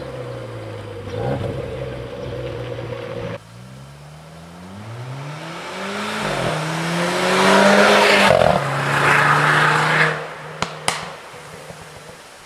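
Renault Clio IV RS's 1.6 turbo four-cylinder with an Inoxcar aftermarket exhaust, driving across a car park, then accelerating hard up through the gears and passing by. The pitch climbs, drops at an upshift and climbs again, holds steady for a moment, and then two sharp exhaust pops come out as the car lifts off and fades away.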